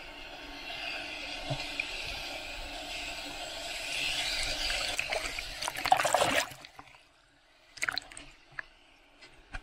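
Ocean surf and water washing over a waterproof camera case at the surface, a rushing noise that builds to its loudest about six seconds in and then cuts off suddenly. A few brief splashes and drips follow.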